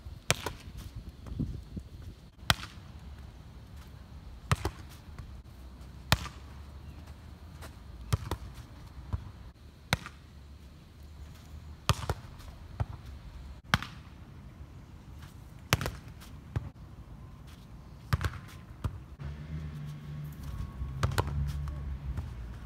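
Sharp slaps of hands striking a beach volleyball, one about every two seconds, over a low steady rumble.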